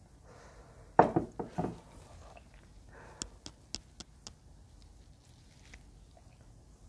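A short cluster of knocks about a second in, the loudest sound, followed a couple of seconds later by five sharp clicks in quick succession.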